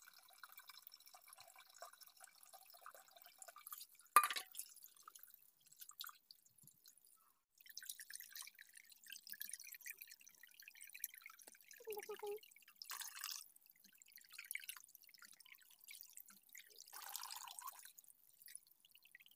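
Tap water splashing and dripping into a steel bowl as raw chicken pieces are rinsed and rubbed by hand, with one sharp knock about four seconds in.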